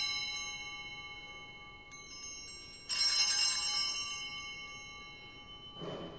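Altar bells rung at the elevation of the consecrated Host: a chime of several high tones rings out and fades, and is struck again about three seconds in and left to ring down. A couple of soft low thumps come near the end.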